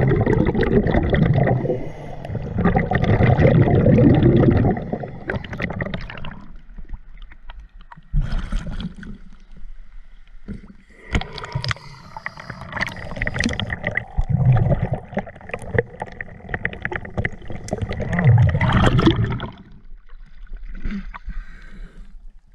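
Water sloshing and gurgling against a diver's camera in loud, uneven bursts as it passes from underwater up through the surface of a shallow lake.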